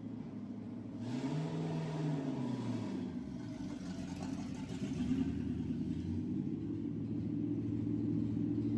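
1963 Chevy C10 pickup's engine running; it revs up briefly about a second in, settles back, then runs steadily.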